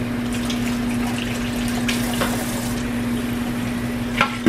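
Kitchen faucet running into a stainless steel sink while hands are washed under the stream. The rush of water carries a steady low hum, and a couple of sharp knocks come near the end.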